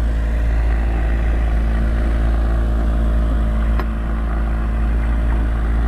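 Small boat's outboard motor running at a steady speed, a constant droning hum over a low rumble, with water washing past the hull.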